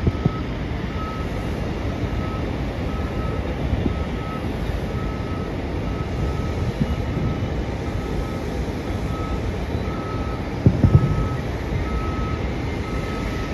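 A vehicle's reversing alarm beeping steadily, about two beeps a second, over a steady low engine rumble. Dull booms of distant fireworks come through at the start and as a louder cluster near the end.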